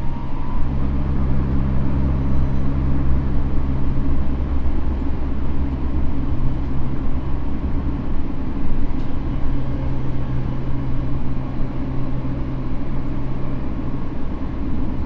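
Running noise inside a Tokyo Metro N05 series electric train car at speed between stations: a steady low rumble of wheels on rail and traction motors, with a constant low hum.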